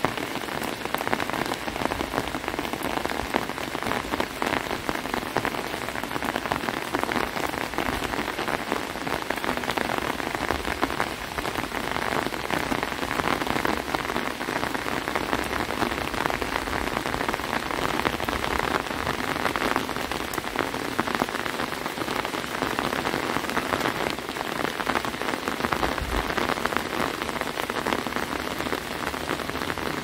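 Steady rain, a dense hiss of falling water with many separate drop hits.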